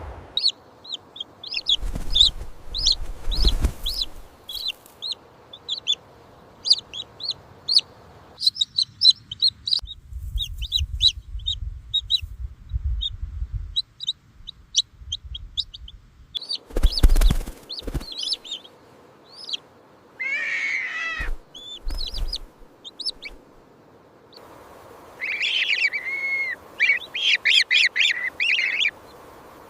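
Young chicks peeping: rapid, short, high chirps, with fuller, lower calls around two-thirds of the way in and again near the end. Several low thumps are mixed in, the loudest just past the middle.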